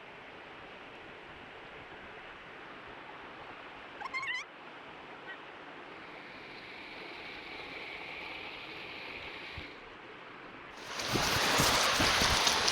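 Steady rush of flowing river water, with a brief high chirping call about four seconds in. About eleven seconds in the water noise turns suddenly much louder and harsher, with low thumps through it.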